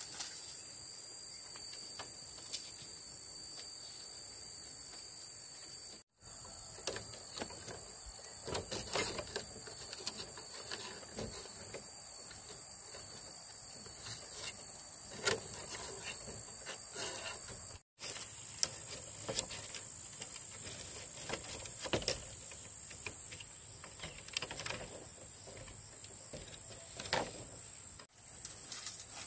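Insects droning steadily in a high pitch, with scattered knocks, clatters and scrapes of bamboo poles being handled and worked with a knife.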